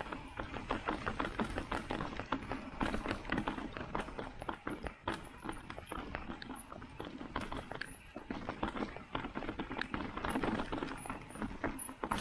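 Mountain bike rattling and clattering over a rocky trail, with tyres knocking on stones and the frame jolting. There is a dense, irregular run of clicks and knocks with no let-up.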